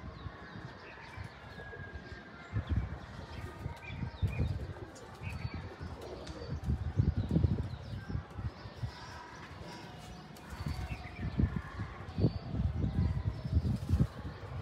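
Teddy pigeons in their loft cooing, with repeated bursts of wing flapping.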